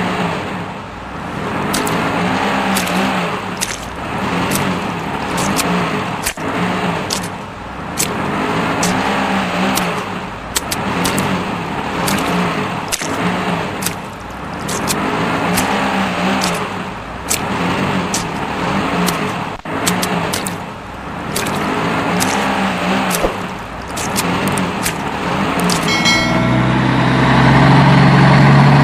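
Car engine sound effect, looped, revving up and down in swells about every two seconds, with regular sharp clicks. Near the end a louder, steadier humming tone takes over.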